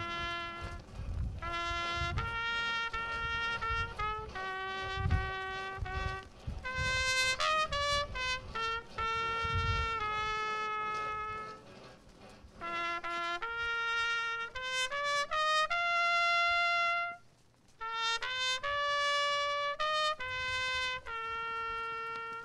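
Solo trumpet playing a slow melody of held notes, with a short break about three-quarters of the way through and a final held note at the end. Wind buffets the microphone in low gusts during the first half.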